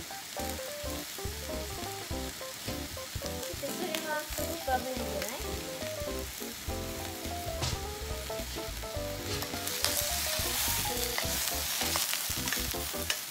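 Onions, potatoes and carrots sizzling in oil in an enameled pot over medium heat, with a wooden spatula scraping and knocking as they are stirred. The sizzle grows louder about ten seconds in.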